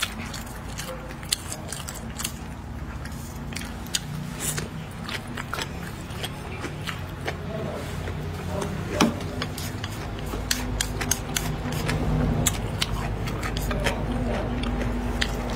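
Eating sounds: wooden chopsticks clicking and scraping on a plate, with chewing and lip smacks. These are many short, sharp clicks over a steady low hum, the sharpest one about nine seconds in.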